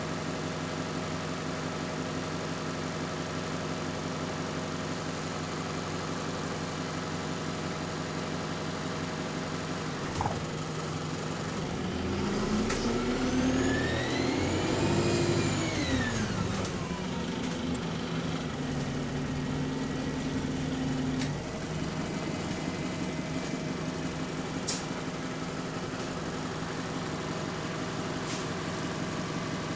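Alexander Dennis Enviro400 MMC double-decker bus heard on board: the engine runs steadily at idle, then about ten seconds in a click is followed by a turbo whine that rises in pitch and falls away over about four seconds as the bus pulls off, before the engine settles back to a steady run.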